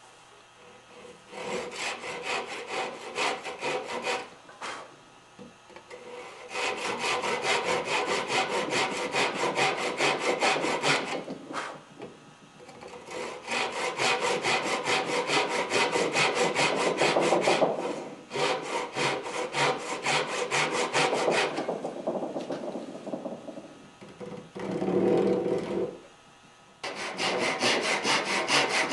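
Hand saw cutting kerfs down the sides of dovetail sockets in a maple bracket foot: several bouts of quick back-and-forth strokes with short pauses between them.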